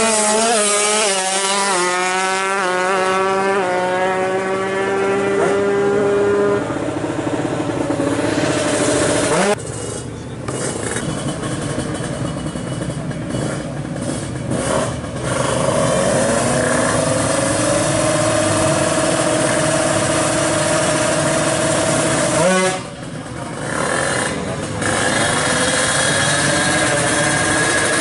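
Two-stroke Kawasaki Ninja 150 drag bikes running at full throttle. The engine pitch climbs and drops back again and again as the bikes shift up through the gears, with abrupt cuts between passes.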